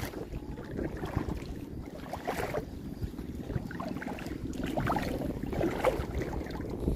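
Wind rumbling on the microphone over the steady wash of shallow water at the shoreline, with a few faint scattered ticks.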